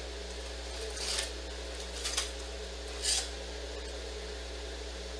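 A steady low hum with three short scratchy rustles about a second apart, the last the loudest.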